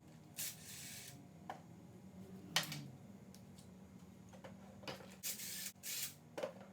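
Hand work on a dirt bike's front fork while its fork-guard bolts are taken out: a few sharp clicks and several short hissing scrapes of tools and metal parts being handled.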